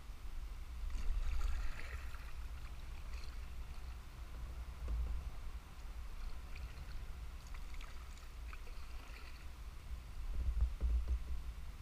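Kayak paddle strokes, the blades dipping, splashing and dripping water, loudest about a second in and again in the second half. Under them runs a steady low rumble on the camera's microphone.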